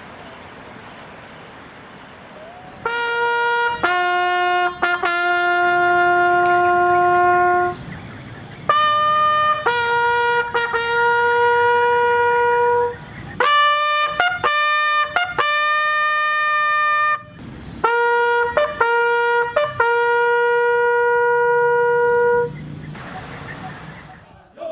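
Bugle call sounded for a flag raising: four phrases of separate clean notes, each ending on a long held note, beginning about three seconds in.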